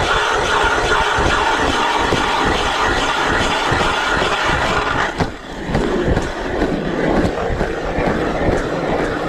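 Ice auger drilling a hole through lake ice: a steady grinding run, with a brief drop about five seconds in before it carries on.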